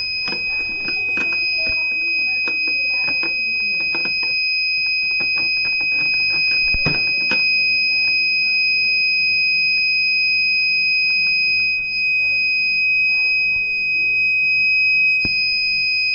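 Kent RO water purifier's alarm sounding a steady, unbroken high-pitched tone: the unit's beep fault, which needs resetting. Clicks and handling noises come over the first seven seconds, with a knock about seven seconds in.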